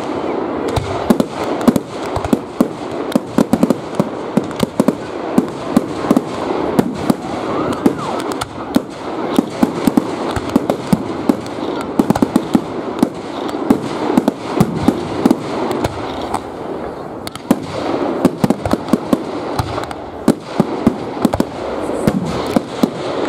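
Fireworks display: aerial shells bursting overhead in a constant rapid run of sharp bangs and crackles.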